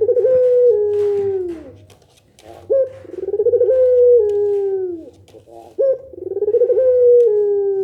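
Puter pelung, a Barbary dove bred for its long coo, cooing: three long phrases, each a short sharp note and then a drawn-out wavering coo that drops in pitch at the end.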